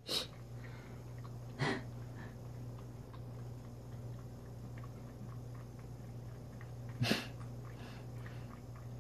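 A cat eating wet food from a hand-held bowl: faint licking and chewing clicks over a steady low hum. Three short sharp nasal breaths stand out, one at the very start, one after about a second and a half, and one about seven seconds in.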